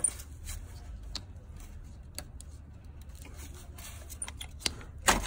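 Scattered small clicks and scrapes of a small pick prying at the plastic latch of an orange high-voltage cable connector, with a sharper click near the end.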